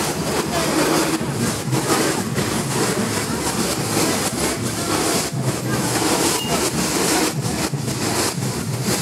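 Loud, continuous crowd hubbub: many voices talking and calling at once over the rumble of street traffic.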